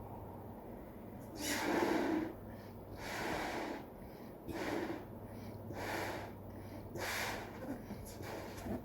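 A person blowing air by mouth into a balloon to inflate it: five breaths pushed into it, the first the longest and loudest, the rest shorter and about a second apart.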